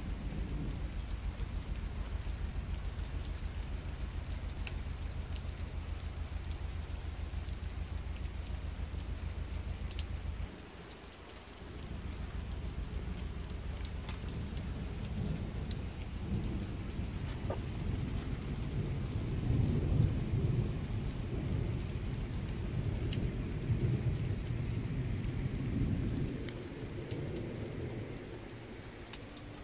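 Rain falling, with scattered drops ticking, under a low rumble. The rumble cuts off abruptly about ten seconds in, then comes back rising and falling, loudest about two-thirds of the way through, and fades near the end.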